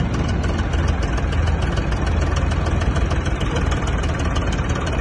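Diesel engines of a backhoe loader and a tractor running steadily while the loader's bucket pushes the stuck tractor-trolley.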